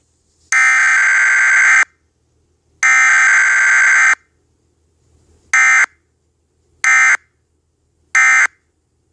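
Emergency Alert System digital data bursts (SAME tones): two long buzzy electronic bursts of about a second each, then three short ones, evenly spaced.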